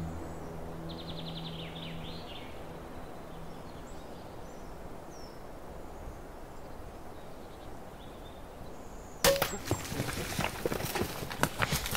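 Quiet woods, then about nine seconds in a sudden crossbow shot, followed by a black bear bolting off through the brush, with many quick snaps and rustles of twigs and leaves.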